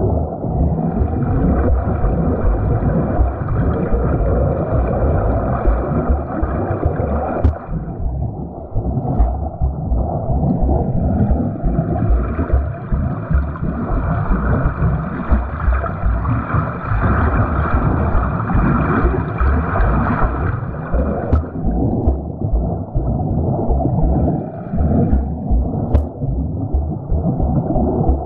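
Water churned by a swimmer's strokes during a catch drill: a continuous muffled rushing and gurgling, mostly low-pitched.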